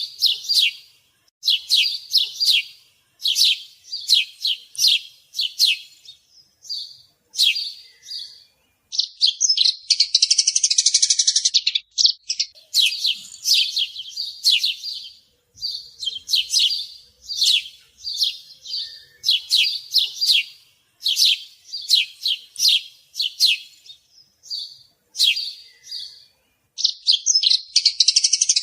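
Sparrow chirping: clusters of short, sharp cheeps repeated again and again, broken twice by a rapid chattering run that lasts about three seconds.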